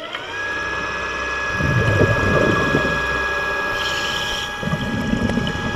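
A motor's whine, heard underwater, rising in pitch as it spins up and then holding one steady high pitch. Twice a low gush of a diver's exhaust bubbles comes over it, about a second and a half in and again near the end.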